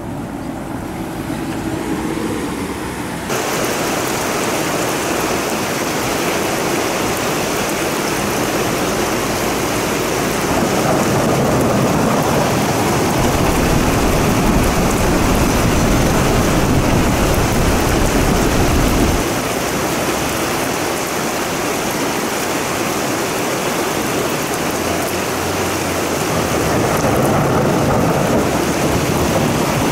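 Thunderstorm downpour: a steady, dense hiss of heavy rain, quieter for the first few seconds and then suddenly fuller. A deep rumble of thunder runs under the rain through the middle, stopping abruptly about 19 seconds in.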